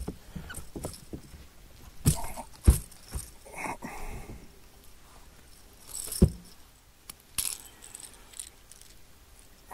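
Handling noise of a freshly caught bass being landed and unhooked in a boat: a few sharp knocks and thumps against the boat, the loudest about two and a half and six seconds in, among light clinking and rustling.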